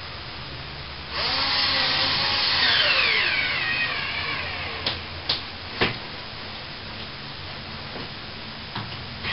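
Cordless drill driving a screw: the motor runs for about three seconds, its pitch dropping as it comes under load, followed by three sharp clicks.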